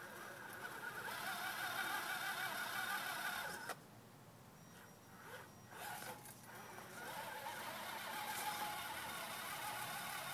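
Electric motor and gear drive of an RC scale crawler truck whining as it crawls over rocks. The whine cuts out about a third of the way in and picks up again a few seconds later.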